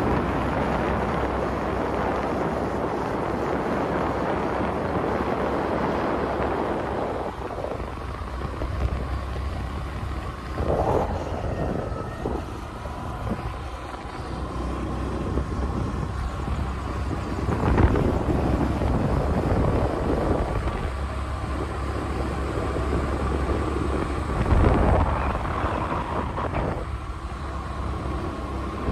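Wind rushing over the microphone of a moving scooter, with its small engine running underneath; a few louder gusts of wind buffeting come and go.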